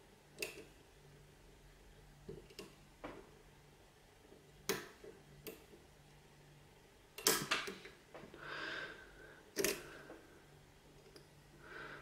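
Irregular light metallic clicks and ticks of a lock pick working the wafers of an Illinois Duo padlock under tension. There are about a dozen, loudest in a quick cluster about seven seconds in and once more near ten seconds.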